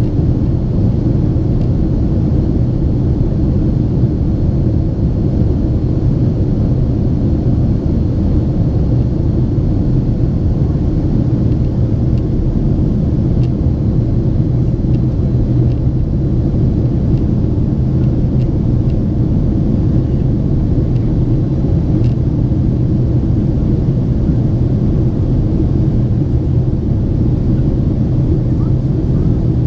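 Steady cabin noise inside a Boeing 767-400ER airliner in flight: a constant low rumble of the jet engines and airflow, with no change in pitch or level.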